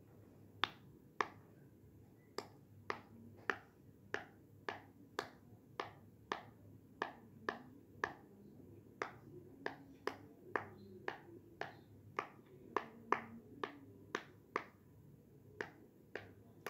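Bubbles of a round rainbow silicone pop-it fidget toy pressed through one at a time, each giving a short, sharp pop, about two a second, some thirty in all.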